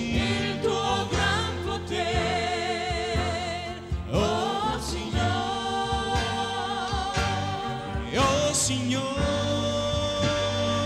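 Live gospel worship song: voices singing with a wide vibrato over an electronic keyboard and a drum kit, with two drum-and-cymbal accents about four and eight seconds in.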